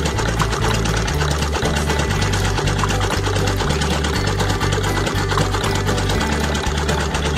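Rapid, even mechanical clatter of a miniature model diesel engine running a belt-driven toy water pump, with low tones stepping in pitch underneath.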